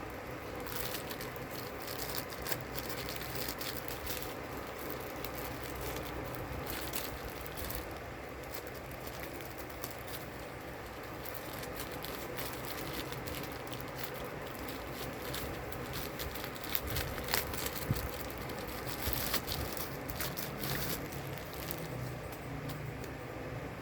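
Handling of a clear silicone phone case and its plastic packaging: scattered light clicks and crinkles, more of them in the second half, over a steady low hum.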